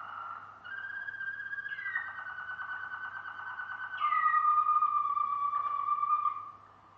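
Malinois Waterslager song canary singing a chain of long, low, rolling tours, each held for one to two seconds before shifting to a new pitch. The last tour is the loudest, and the song stops near the end.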